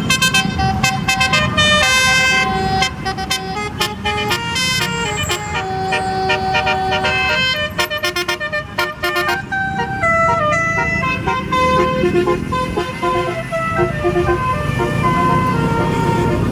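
Telolet basuri multi-tone bus horn playing a fast tune of short pitched notes that change many times a second, over the low rumble of a bus engine.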